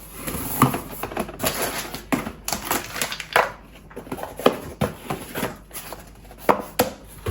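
Irregular clicks, taps and knocks of small objects being handled and set down, several a second at uneven spacing.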